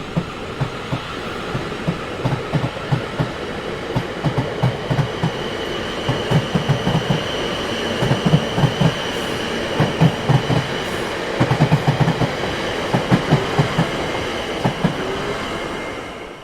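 A train rolling past, its wheels clattering over rail joints in quick clusters of low knocks, with a steady high squeal above. The sound fades away right at the end.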